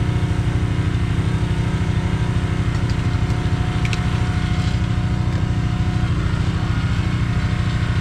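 Two-stroke chainsaw engine idling steadily between cuts, a fast even puttering.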